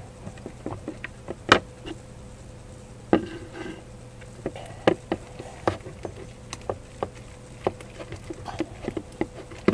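Homemade glue slime being worked in its container, making irregular sticky clicks and small pops every half second to a second.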